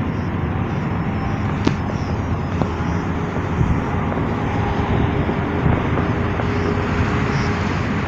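Steady outdoor rumble of city traffic, with a few faint clicks.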